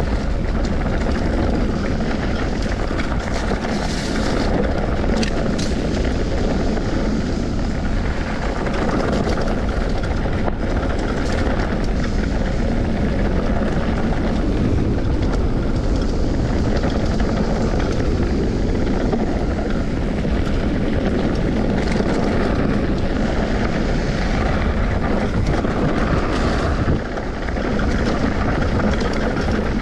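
A vehicle in motion, a steady, loud rumbling noise with a brief dip about 27 seconds in.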